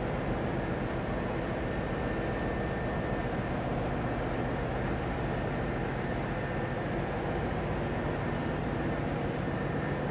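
Container ship engine-room machinery running: a steady mechanical drone with a low hum and a faint high whine.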